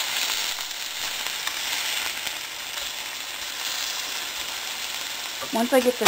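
Sirloin frying in a pan: a steady sizzling hiss with small crackles.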